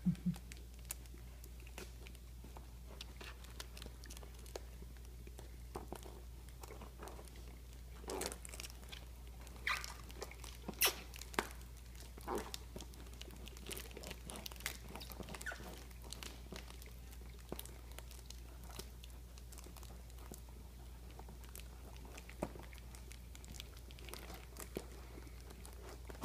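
American Akita puppy licking and chewing peanut butter from a jar held to his mouth: irregular wet smacks and clicks, busiest from about eight to twelve seconds in, over a faint steady low hum.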